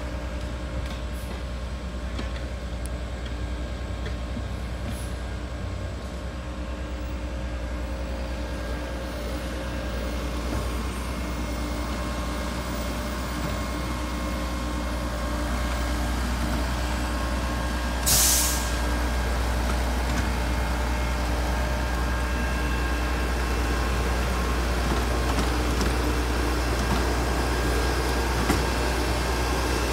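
LeeBoy 8515 asphalt paver's diesel engine running steadily while paving, with a short sharp hiss of air about eighteen seconds in.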